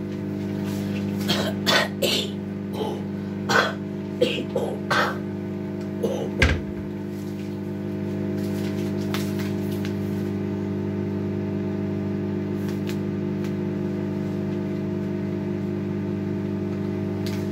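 A kitchen appliance runs with a steady mechanical hum. Over it come a handful of short, sharp knocks and clatters, one with a low thump about six and a half seconds in. After that only the hum is left.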